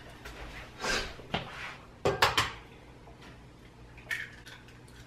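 Kitchen clatter at the counter: a few short knocks and clinks of dishes and utensils, the loudest cluster about two seconds in.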